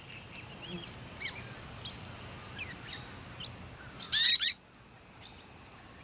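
Golden-shouldered parrot calling: faint scattered chirps, then a short, louder burst of quick sliding whistled notes about four seconds in, the male's call telling the chicks in the nest mound that it is mealtime. A steady high insect drone runs underneath.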